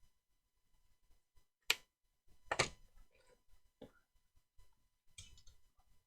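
Snips cutting steel tape-measure blade: a sharp snap, then a louder, slightly longer crunch, followed by a few lighter clicks.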